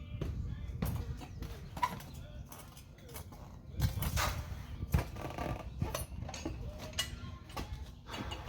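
Manual tire changer being worked to push an ATV tire's bead off the rim: irregular metal clanks and knocks as the bead-breaker bar is levered, over low rubbing and creaking of rubber.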